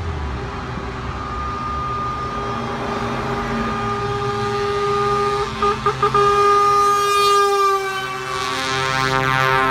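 Truck air horns sounding from an approaching lorry convoy: a long held multi-note horn blast, broken by three quick toots about halfway, then horns sliding down in pitch near the end as a truck draws past, over the rumble of diesel engines.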